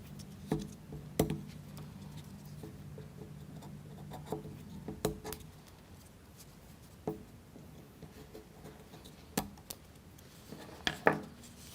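Scattered light clicks and snaps, a second or two apart, of the excess wooden toothpick ends being cut off a plywood model wheel, with small handling sounds of the wooden parts.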